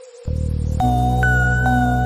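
Electronic background music with a sustained synth tone. The bass comes back in about a quarter second in, and a fuller section with a repeating high note pattern begins just under a second in.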